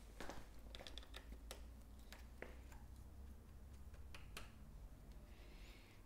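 Faint, scattered small clicks and ticks of a multitool and a bicycle rear derailleur's cage being handled while its jockey wheels are fitted.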